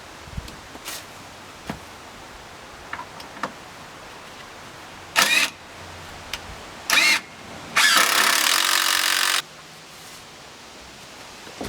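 Porter Cable 20V brushless cordless impact driver driving a screw into pressure-treated lumber: two short bursts, then a longer run of about a second and a half as the screw is sunk. Light clicks and knocks of handling come before.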